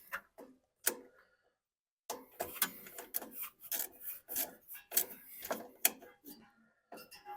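Irregular metallic clicks, taps and scraping as small nuts are threaded onto a carburetor's intake elbow and worked on with hand tools. There are a few isolated clicks, then a brief lull, then a dense run of knocks and rubbing from about two seconds in.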